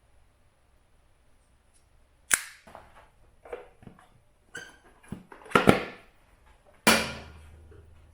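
A run of sharp, irregular knocks and clanks of hand tools and parts being handled, starting a couple of seconds in, with a quick cluster near the middle. The last knock rings on briefly as it fades.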